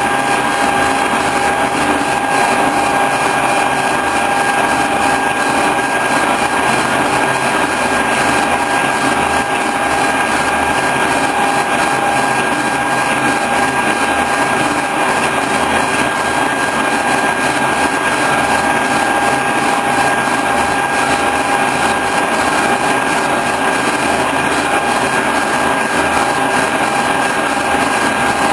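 A boring mill's spindle turning a milling cutter that takes a continuous cut across the face of a metal milling vise. It is a steady machining noise with a constant high whine that does not change.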